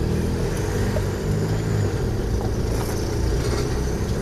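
Car driving at steady speed, heard from inside the cabin: a steady low rumble of engine and road noise.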